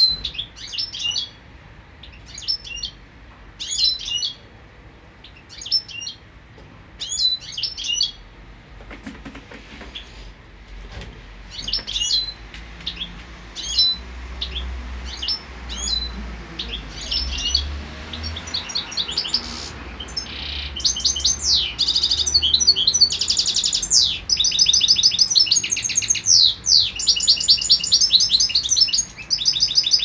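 Caged European goldfinches in breeding condition singing. At first short chirping phrases come every second or two, then from about two-thirds of the way in a continuous, louder, fast twittering song.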